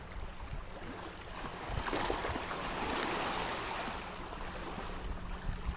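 Choppy sea washing against the shore at high tide, swelling into a louder wash about two seconds in, over a faint steady low hum.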